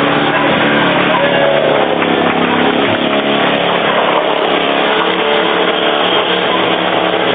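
An engine running steadily at a constant speed, with a broad rushing noise over it.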